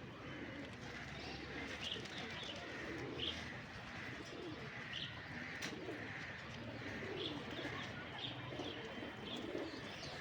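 Domestic pigeons cooing, with short high chirps scattered throughout and a single sharp click about five and a half seconds in.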